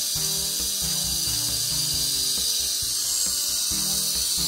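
Sherline 90 V DC motor running free with a steady high hiss while its carbon brushes bed in on a new, larger commutator. Background music with a stepping melody plays alongside.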